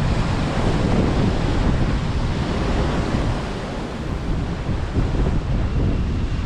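Sea surf washing in under steady wind buffeting the microphone, a dense rushing noise heaviest in the low end.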